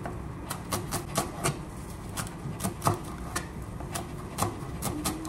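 Chef's knife chopping fresh green herbs on a plastic cutting board: quick, uneven knocks of the blade on the board, about three a second.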